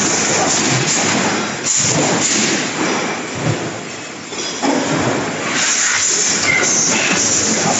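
Loud, continuous machine din from a line of mechanical punch presses being loaded by robot arms: a dense clatter and hiss that eases off a little near the middle and swells again a second later.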